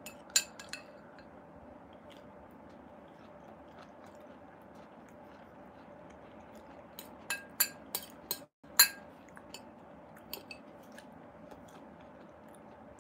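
A fork clicking and clinking against a plate a few times just after the start and in a quick cluster about seven to nine seconds in, over a faint steady hum, with quiet chewing of pomelo fruit.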